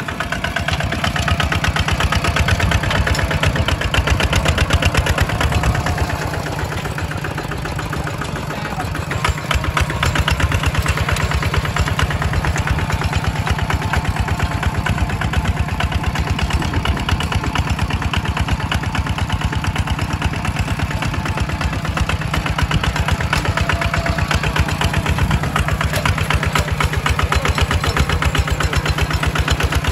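Single-cylinder diesel engine of a two-wheel walking tractor running steadily under load while ploughing, its rapid firing beats unbroken; it runs a little quieter for a few seconds about a quarter of the way in.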